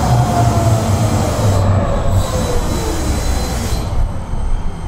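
Tram running on its rails, heard from inside the car: a low rumble of wheels and running gear, with a motor whine falling in pitch over the first two or three seconds as the tram slows for a stop. Faint high wheel squeal rides above it.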